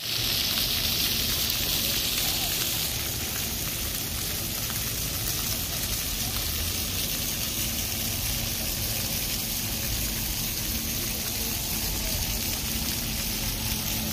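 Small vertical water jets of a shallow water-mirror fountain splashing steadily onto the wet paving, a continuous hiss of falling water that is a little brighter for the first few seconds.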